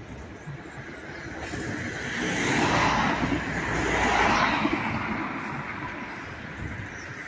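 A road vehicle passing, its tyre and engine noise swelling to a peak mid-way and then fading away, over steady outdoor background noise.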